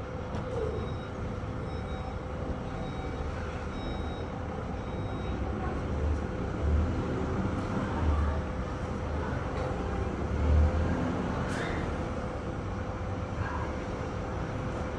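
VW Touareg 3.0 TDI V6 diesel running, with a steady thin hum above the engine's low rumble, which swells a few times. The hum is plausibly the unexplained noise that starts once the car is driven and persists even at standstill until it has covered 2 to 5 km, i.e. until warmed up. A short rising chirp sounds about eleven seconds in.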